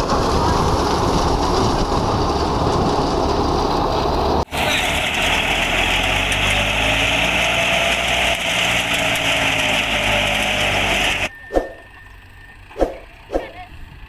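Wheat thresher driven by a tractor, running loudly with the tractor engine under load, a dense steady machine noise. The sound changes abruptly about four and a half seconds in and cuts off suddenly about eleven seconds in. What follows is much quieter, with a few short knocks.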